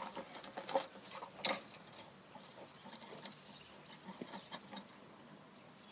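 Footsteps on garden ground walking away: light, irregular crunches and clicks, the loudest about one and a half seconds in, thinning out and fading after about two seconds.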